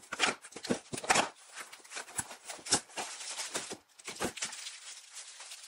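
Cardboard shipping box and its packaging being opened by hand: an irregular run of tearing, scraping and rustling.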